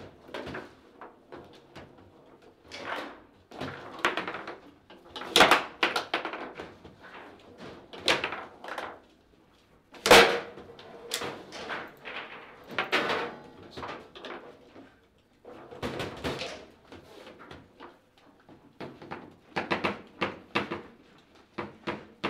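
Table football being played: the ball and the rods' plastic figures knocking against each other and the table's walls in quick, irregular sharp knocks, the hardest strike about ten seconds in.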